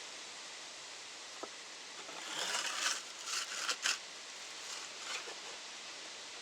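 Kiln ash being scooped and scraped out of a firebox: a short run of gritty scraping and rustling with a few sharp clicks between about two and four seconds in, and a smaller scrape a second later, over a steady hiss.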